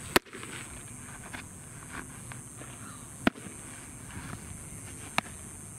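A pitched baseball smacks into the catcher's leather mitt with a sharp, loud pop just after the start. Two more sharp smacks follow, a loud one about three seconds in and a smaller one about five seconds in.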